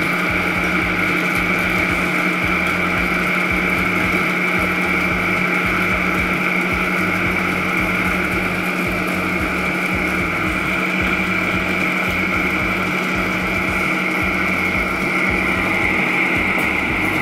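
Electric blender motor running steadily on low, grinding torn bread into breadcrumbs.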